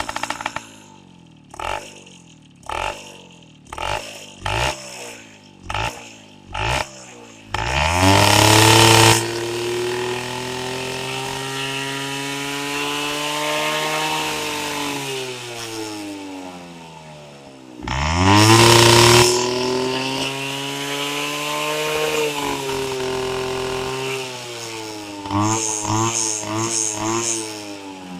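Bajaj M80's single-cylinder two-stroke engine being revved: about seven short throttle blips a second apart, then two long hard revs, each winding slowly back down, and a quick run of blips near the end.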